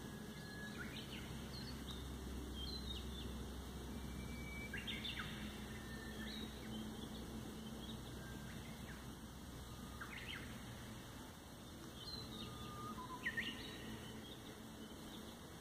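Wild birds calling in the forest: short, scattered chirps and quick whistled notes, some sweeping down in pitch, with the loudest chirp near the end. A steady low background rumble runs underneath.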